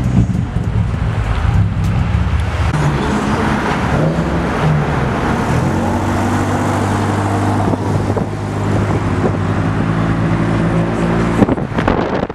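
Car engine and exhaust running on the move, the engine note shifting in pitch over the first few seconds and then holding steady. A sharp knock sounds near the end.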